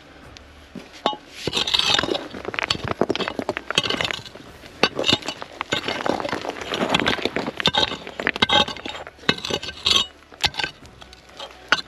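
A metal digging tool scraping through stony soil and clinking against rocks, a rapid, irregular run of scrapes and sharp knocks starting about a second in.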